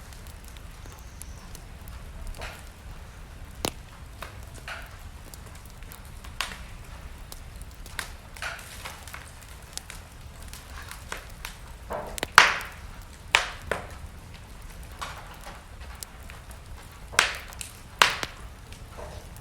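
Wood fire burning in a fireplace: a steady low rumble of flames with scattered sharp crackles and pops of burning logs, the loudest about twelve seconds in and a few more near the end.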